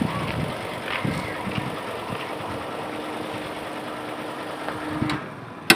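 A vehicle engine idling steadily, with a thin steady hum from about a second in until near the end and a single sharp click near the end.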